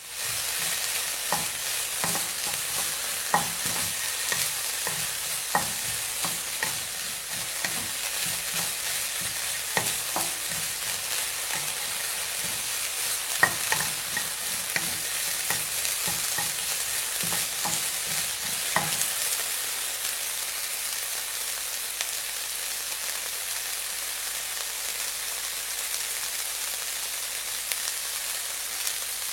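Food deep-frying in hot oil in a deep fryer: a steady high sizzle with frequent sharp pops and crackles, which stop about two-thirds of the way through, leaving an even sizzle.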